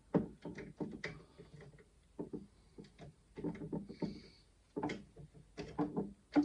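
Cable connectors being handled and pushed into their sockets inside a desktop PC: a string of irregular plastic clicks and knocks, with a sharp click near the end.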